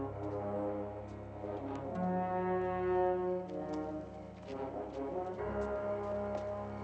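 Tense orchestral film score: slow, held brass chords that shift every second or so over a steady low bass note, with faint ticks.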